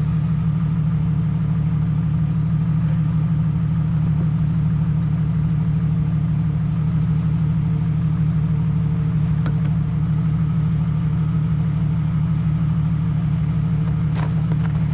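Off-road 4x4's engine idling steadily, a low even throb that holds the same pitch throughout.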